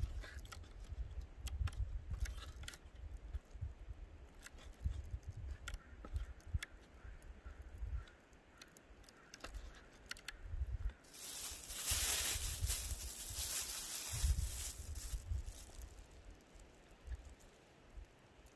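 Small knife slicing black bear heart on a wooden plank, with short clicks as the blade taps the wood, under a low rumble of wind on the microphone. About eleven seconds in, a loud rustling hiss lasts for a few seconds.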